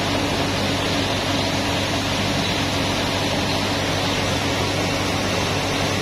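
Yanmar YH700 combine harvester running steadily, its diesel engine and unloading auger working as grain is discharged from the auger spout into a sack. An even, unchanging machine noise with a steady low hum.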